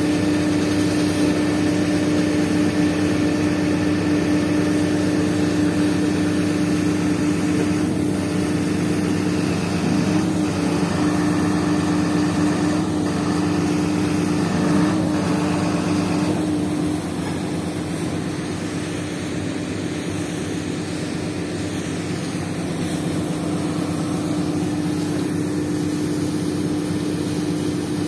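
Diesel engines of heavy construction machinery running steadily, a constant hum held at one pitch. It gets a little quieter about two-thirds of the way through.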